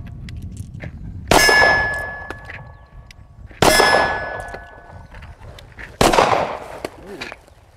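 Three shots from a Kahr CW9 9mm pistol, a little over two seconds apart. The first two are each followed by the ring of a struck steel plate target.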